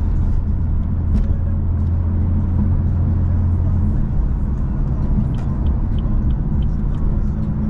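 BMW M4's twin-turbo inline-six with a mid-pipe exhaust droning at a steady cruise, heard inside the cabin over road and tyre noise, with a few light knocks from the road. The low drone eases about four seconds in.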